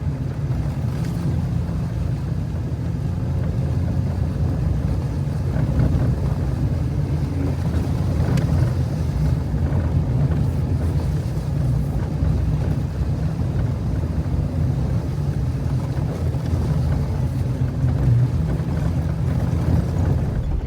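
Jeep Wrangler driving up a dirt trail: a steady, low engine and road drone with some wind noise.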